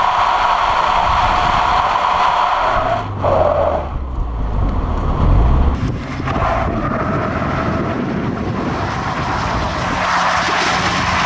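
Nissan 200SX S13 drifting: its tyres squeal under the 1.8-litre turbocharged CA18DET four-cylinder engine working hard. The squeal breaks off for a few seconds about three seconds in, where the engine's low note stands out, then comes back.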